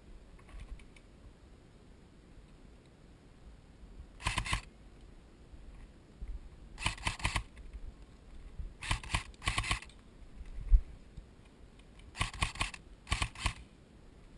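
Airsoft rifle firing in short bursts of rapid shots: six bursts, each well under a second, with pauses of one to three seconds between them.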